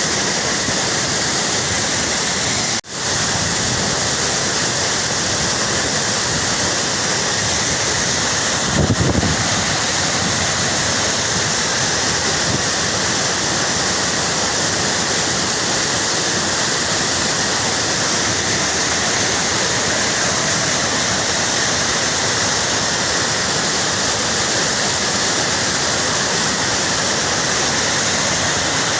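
Loud, steady rushing of a mountain stream in spate: a flash-flood surge of rainwater coming down from the hills through the rocky channel. There is a momentary dip about three seconds in and a low thump about nine seconds in.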